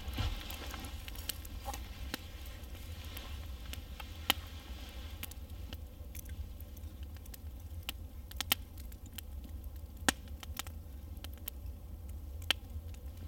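Wood campfire crackling, with scattered sharp pops a few seconds apart over a steady low rumble.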